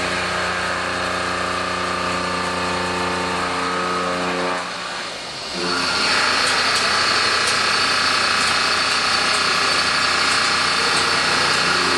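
Heavy metal-cutting machine running with a steady, even hum for about five seconds. After a brief dip it gives way to a higher, brighter whine with a steady high tone and faint ticks.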